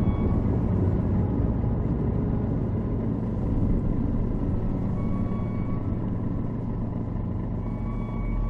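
Fishing boat's engine running steadily, a continuous low rumble.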